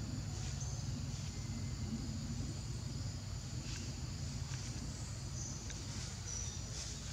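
Outdoor ambience: a steady low rumble, with short high insect chirps here and there.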